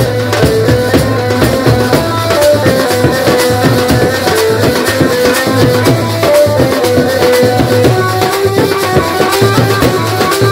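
A live desi band party playing: a melody of held notes moving step by step over fast, dense drumming on side drums and bass drums.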